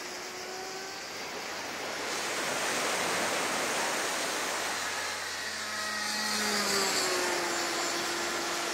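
The O.S. 61 nitro engine of a Tiger 40 RC model plane running high overhead: a thin steady tone whose pitch slides down about six to seven seconds in as the plane passes. It sits under a louder steady rush of surf.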